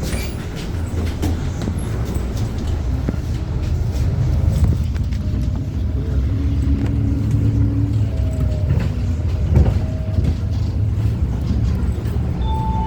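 Pohang city bus heard from inside the cabin: a steady low engine and road rumble, with a faint whine that comes and goes about halfway through.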